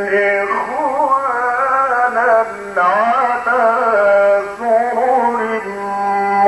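A male Egyptian Quran reciter chanting in a melodic, drawn-out style. His voice glides through long, ornamented held notes in several phrases, amplified through a microphone.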